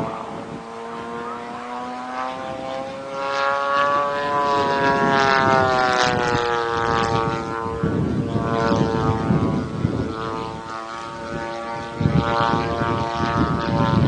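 Radio-controlled Pitts biplane model's engine and propeller droning in flight, its pitch rising and then falling away as the plane passes and changes throttle.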